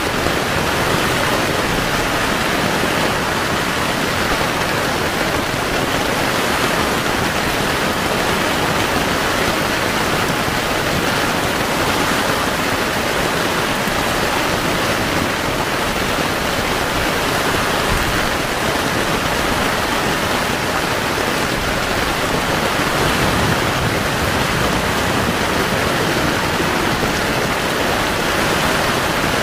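Heavy rain falling, a steady, even hiss with no let-up.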